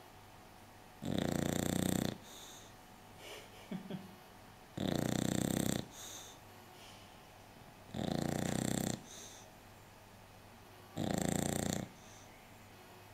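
English bulldog snoring in her sleep: four loud snores about three seconds apart, each lasting about a second and followed by a fainter short breath.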